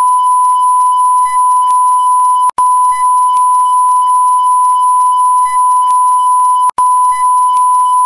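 Steady 1 kHz reference test tone of the kind that goes with colour bars, a loud, unbroken beep that cuts out for an instant twice.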